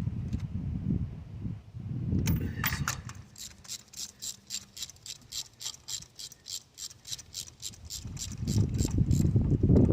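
Hand ratchet wrench clicking evenly, about four clicks a second, as it runs a spark plug down into the cylinder head. Low thumps and rustling of hands on the tool and engine at the start and near the end.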